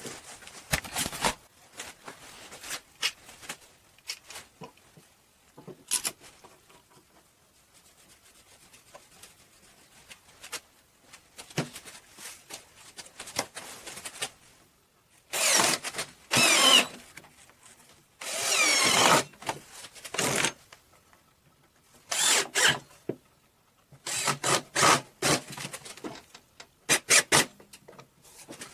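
Cordless drill running in short bursts while driving screws into a wooden frame: two runs of a couple of seconds about halfway through, then several shorter ones near the end. Before them, scattered clicks and knocks of tools and screws being handled on a wooden workbench.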